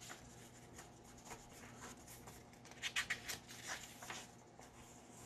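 A paper page of a picture book being turned by hand: faint rustling and brushing of paper, a little louder about three seconds in.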